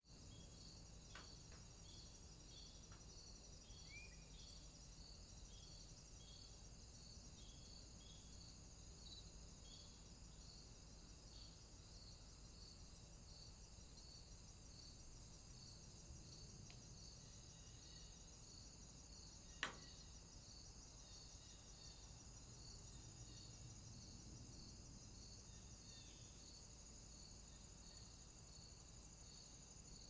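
Faint, steady high-pitched insect chirring with regular pulses, and a single sharp click about two-thirds of the way through.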